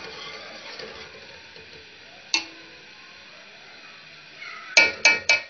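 Metal spoon stirring dal in a metal pot and knocking against the pot: one sharp clink a little over two seconds in, then three quick taps near the end.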